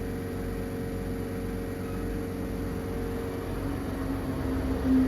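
Futurmat Ottima espresso machine's pump running steadily while a shot is pulled during volumetric dose programming, with a low hum that swells near the end.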